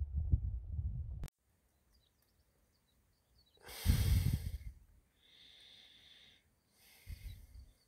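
Low rumble of wind on the microphone that cuts off about a second in; then a few breathy exhales close to the microphone, the loudest a little before the midpoint.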